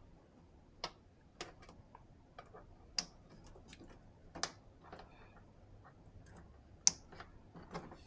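Irregular small plastic clicks and taps, about a dozen, from wiring connectors being handled and plugged together; the sharpest click comes near the end.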